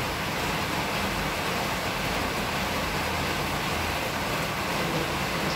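Steady hiss of heavy rain.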